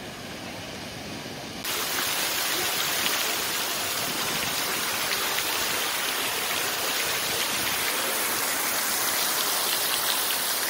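Water from a tiered stone fountain splashing and falling into its basin close by, a steady rushing that starts abruptly about two seconds in.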